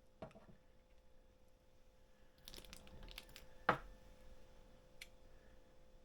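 Scattered small clicks, taps and rustles from hands and tools working epoxy onto a fishing rod blank, with a cluster of light clicks past the middle and one sharp knock just after it. A faint steady hum runs underneath.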